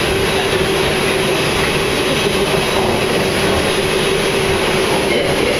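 Subway car running: a loud, steady rumble and rattle of the train in motion, with a steady whine running through it.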